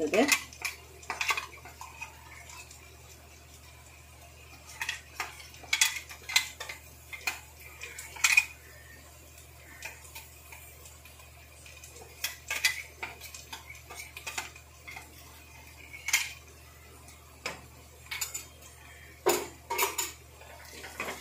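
Scattered clinks and knocks of kitchen utensils against cookware, irregular and spread out, with quiet stretches between them.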